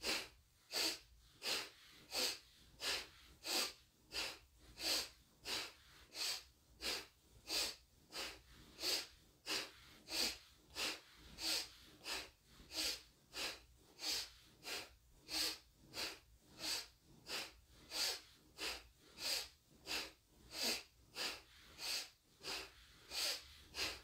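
A woman breathing sharply and rapidly through her nose in an even rhythm of about one and a half breaths a second, alternating inhale and exhale. This is the Kundalini twisting breath, inhaling through the nose on the twist to the left and exhaling on the twist to the right.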